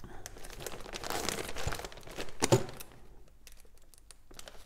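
Clear plastic bag of mounting screws and fittings crinkling as fingers handle and pull it open, with one louder rustle about halfway through, quieter near the end.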